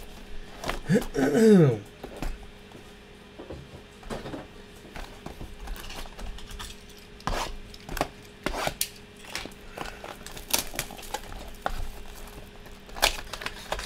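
A Topps Finest cardboard box and its thick chrome trading cards being handled: a scattered string of light clicks, taps and rustles as the box is opened and the cards are pulled out. A brief falling vocal sound about a second in is the loudest thing.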